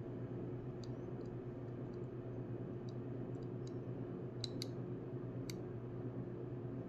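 Scattered light, sharp clicks of small tools and driver bits being handled, about eight in all, the loudest a close pair a little past the middle. A steady low hum runs beneath them.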